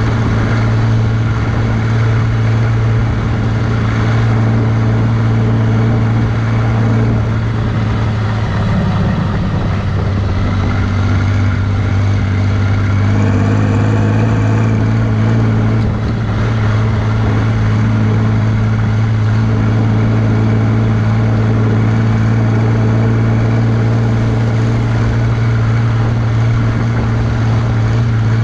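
John Deere 3140 tractor's six-cylinder turbo diesel running steadily at road speed while pulling a trailer, heard from the bonnet. Around the middle a rising whine comes in for a few seconds as the engine works harder, blowing a plume of exhaust smoke.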